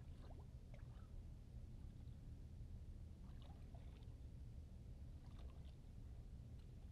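Near silence: a faint low rumble with a few small scattered ticks, water lapping lightly at the hull of a boat sitting still on calm water.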